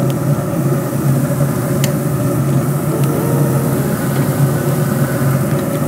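Wood-pellet smoker running in grill mode: its fan gives a steady, even hum, with a faint click of metal tongs against the grate about two seconds in.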